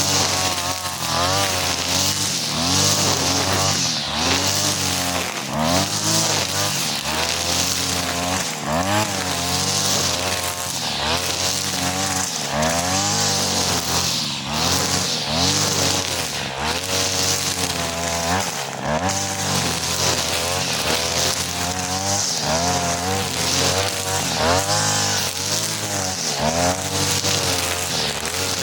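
43cc two-stroke brush cutter with a four-line nylon trimmer head (2.5 mm line) running under load, its engine pitch rising and dipping about every second or so as it cuts grass. A steady high hiss runs under the engine.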